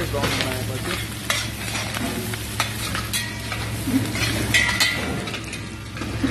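Chopped onions, carrots, garlic and celery sizzling in a stainless steel pot while a metal utensil stirs them, scraping and clicking against the pot over a steady frying hiss: the vegetable base for a brown sauce being sautéed. A steady low hum runs underneath.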